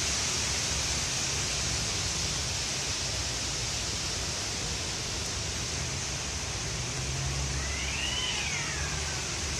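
Strong gusty wind rushing through trees, a steady hiss with a low rumble. About three-quarters of the way through, a faint tone rises and falls once.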